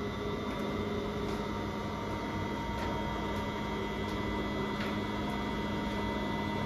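Volleyball serving machine's electric motors running steadily, a hum with a held whine, with a few faint light ticks.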